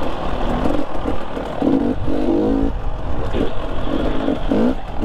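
Dirt bike engine revving in short bursts, its pitch rising and dropping again and again as the throttle is opened and shut.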